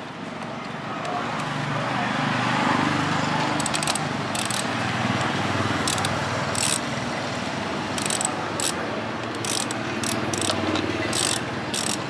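Hand ratchet wrench clicking as a bolt is turned with a socket, in short irregular strokes that come more often toward the end.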